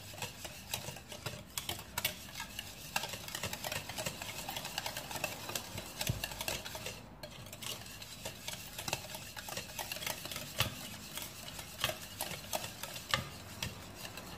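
Wire balloon whisk beating a runny egg, sugar and oil mixture in a mixing bowl: quick, uneven clicking of the wires against the bowl over a wet swishing, steady throughout.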